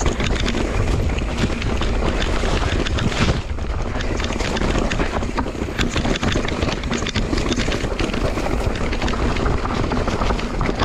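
Mountain bike riding down a rocky dirt singletrack: wind buffeting the helmet camera's microphone over a dense run of rattles and clicks from the bike and its tyres on stones, with overhanging plants brushing past.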